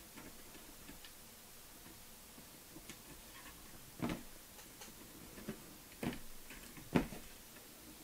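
Intel stock CPU cooler's plastic push-pins clicking and knocking against the motherboard as they are pressed and turned while being fitted. A few scattered sharp clicks, the loudest about four, six and seven seconds in.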